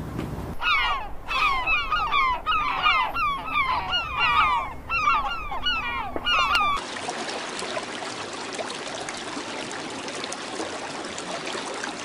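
Birds giving loud, nasal, honking calls, many short downward-sliding notes overlapping in quick succession, like a busy flock or colony. About two-thirds of the way through they stop abruptly and a steady even hiss takes over.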